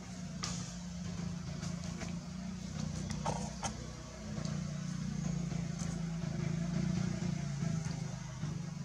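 A motor engine running with a steady low drone that grows a little louder about halfway through, with a few faint clicks over it.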